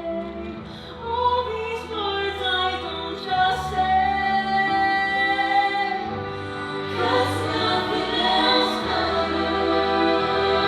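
Music with singing: a voice holds long, wavering notes over sustained instruments.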